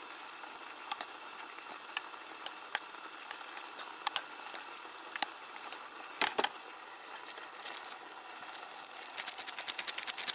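Chopsticks clicking and scraping against a metal mess tin while noodles are eaten from it: scattered light clicks, a short rattling cluster about six seconds in, and a fast run of ticks near the end.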